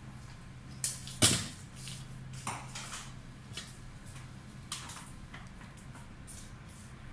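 Leafy stems and greenery being handled: a few short crisp rustles and clicks, the loudest about a second in, over a steady low hum.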